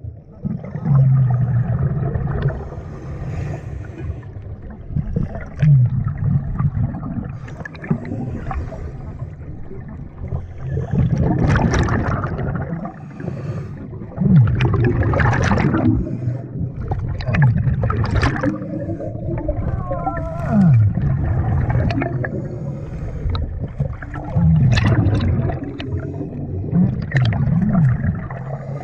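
Scuba diver breathing underwater: regulator inhalations with a low wavering tone, and a gurgling rush of exhaled bubbles every few seconds.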